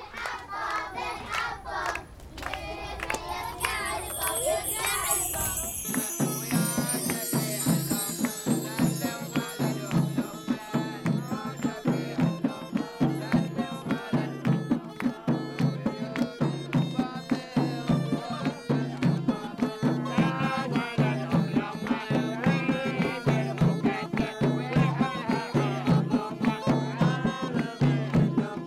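Middle Eastern folk-style music: a shimmering sweep of jingling high notes, then from about six seconds in a steady, fast drum beat carrying through.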